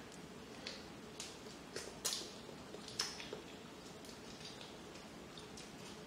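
Several faint, separate cracks and snaps of a boiled shellfish shell being pried open by hand.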